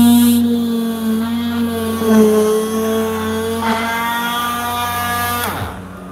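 Cordless oscillating multi-tool (Milwaukee M18) with a cold knife blade running as it cuts through the adhesive bond holding the panoramic roof glass: a steady buzzing whine whose pitch wavers slightly. It is switched off about five and a half seconds in and winds down with a falling pitch.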